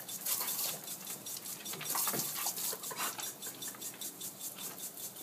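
Lawn sprinkler spraying water, with a rapid, even ticking of several ticks a second over the hiss and patter of the spray.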